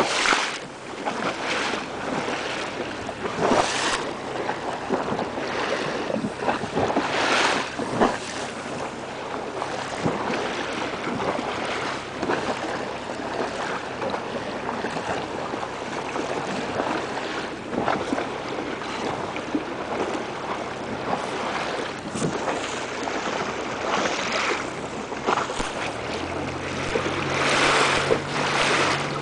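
Wind buffeting the microphone over water lapping and splashing against a slow-moving small boat, with irregular louder gusts. A low steady engine hum comes in near the end.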